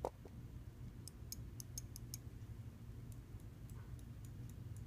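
Computer mouse button microswitch clicking faintly after its spring has been retensioned to stop double-clicking. A soft bump at the start, then a run of small sharp clicks about a second in and another run from about three seconds in.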